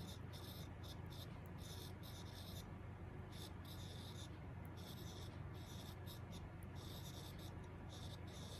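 S Pen stylus writing on the Samsung Galaxy Note20 Ultra's glass screen: a quick series of faint scratchy strokes, some very short and some about half a second long, over a steady low hum.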